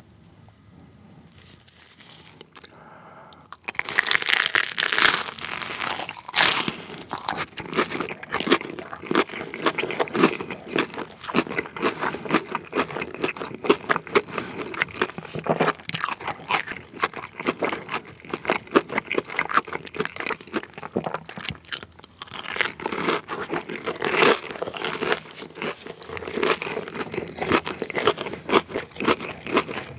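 Close-miked crunching and chewing of a fried, batter-coated cheese corn dog. It is quiet for the first few seconds, then a loud crunchy bite comes about four seconds in, followed by steady chewing with crisp crunches.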